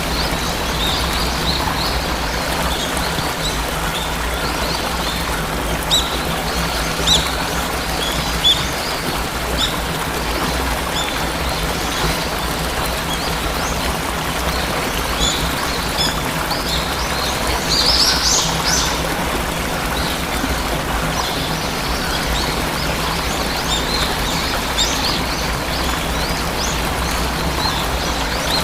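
Waterfall rushing steadily, with small birds chirping over it in short high calls, scattered throughout and thickest about two-thirds of the way through.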